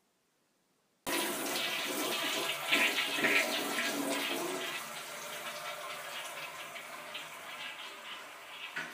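Toilet flushing: a sudden rush of water starts about a second in and slowly fades, with a short knock near the end.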